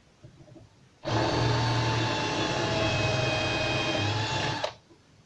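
Handheld electric drill running steadily as a 6 mm bit bores out a hole in an old hard plastic cap. It starts about a second in and stops abruptly after about three and a half seconds.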